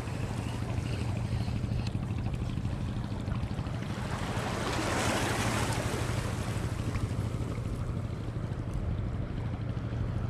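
Steady low drone of a passing boat's engine under wind and water noise, the noise swelling slightly about halfway through.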